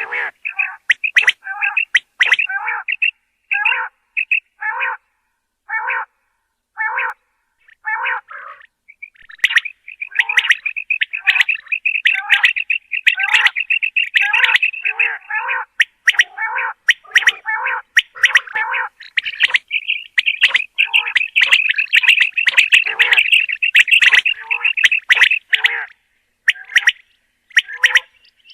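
Common quail calling: separate short calls at about one a second, then from about nine seconds in a dense, run-together stretch of calls, thinning back to separate calls near the end.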